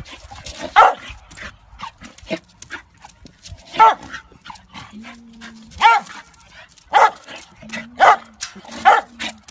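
A dog giving short high-pitched barks, about six in all at uneven intervals, with faint clicks between them.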